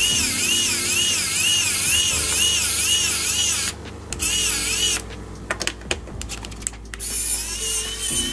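Electric precision screwdriver motor whining as it backs screws out of a laptop's bottom case, its pitch wobbling about twice a second. It stops briefly about four seconds in, a few light clicks follow, and it runs again near the end.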